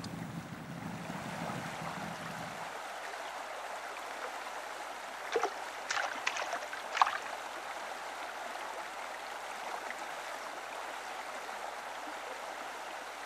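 Steady wash of river water, with a few short knocks about halfway through.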